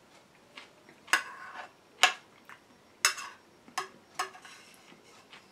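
A handful of sharp clicks and knocks, about one a second, the loudest two near the start, several followed by a brief rustle or scrape, as of small hard objects being handled.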